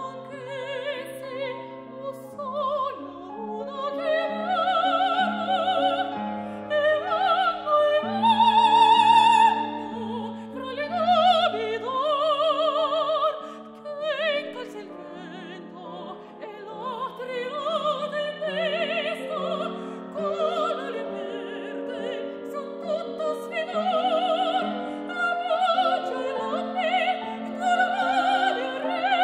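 Operatic soprano singing an Italian aria with a wide vibrato, accompanied by grand piano. She holds a loud high note about eight seconds in.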